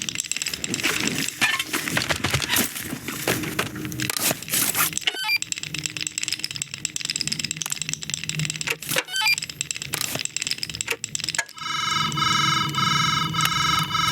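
Animated-film sound effects: a dense run of clicks, scrapes and crinkling crackles. About twelve seconds in, a loud, pulsing electronic buzz with a steady pitch takes over.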